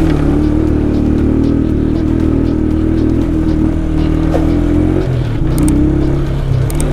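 Motorcycle engine running at steady low revs while riding an off-road trail, its pitch shifting slightly about five seconds in.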